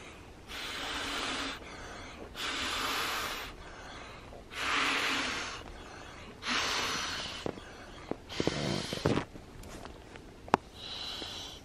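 Person blowing breaths into an inflatable camping pillow by mouth: six long puffs of air, about two seconds apart, with a sharp click near the end.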